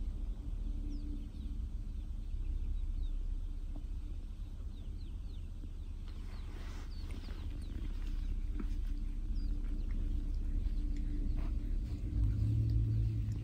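Domestic cat purring, a low steady purr heard close up, with a brief soft rustle about six seconds in.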